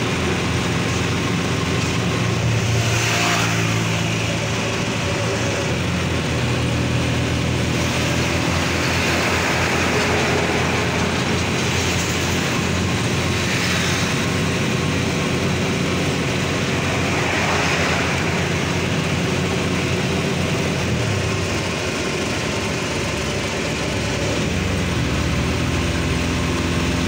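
Road traffic: a motor vehicle engine hums steadily while several vehicles pass by, each swelling up and fading away, about four times.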